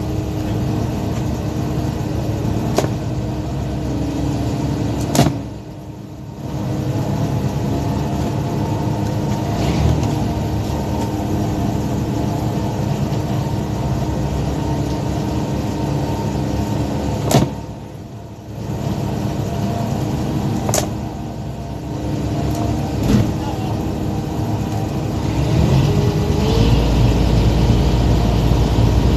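Powered net hauler and boat engine running steadily as a gillnet is hauled aboard, with several sharp knocks. The machinery briefly drops off twice, each time right after a knock, and runs deeper and louder near the end.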